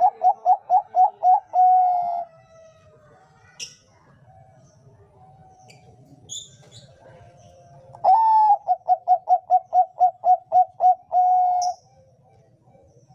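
Bangkok perkutut (zebra dove) cooing in two phrases. Each phrase is a long opening note, then a quick run of about a dozen short coos at roughly four a second, then a held final note. The first phrase ends about two seconds in and the second begins about eight seconds in, with a few faint high chirps between them.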